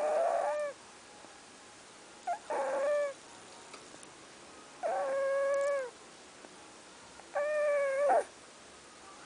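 A dog snoring very loudly, each breath coming out as a high, whining whistle that drops at its end. There are four of them, about two and a half seconds apart, each under a second long.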